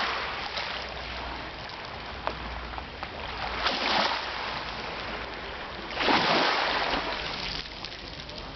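Sea waves washing in on the shore, one swell of surf partway through and a louder one about six seconds in.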